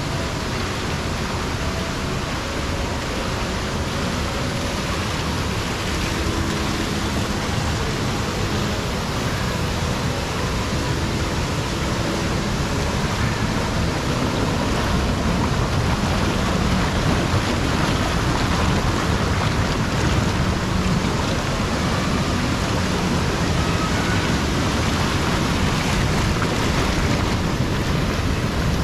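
Spa pool water jets churning and bubbling, with a small cascade splashing into the pool: a steady rush of water that grows somewhat louder about halfway through.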